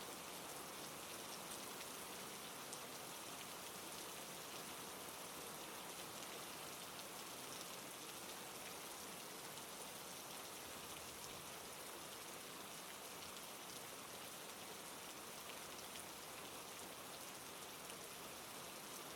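Steady rain: an even hiss with scattered raindrop patter.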